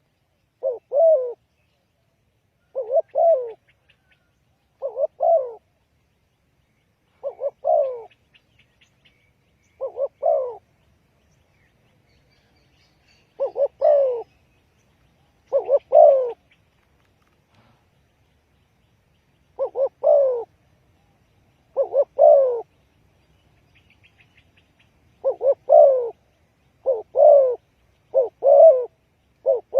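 Spotted dove cooing: short phrases of a few low coos, repeated about every two seconds with longer pauses now and then, faster near the end.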